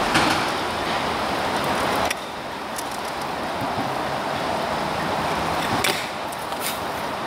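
Freeline skate wheels rolling on asphalt, a steady rough hiss, with a few sharp clicks from the skates later on.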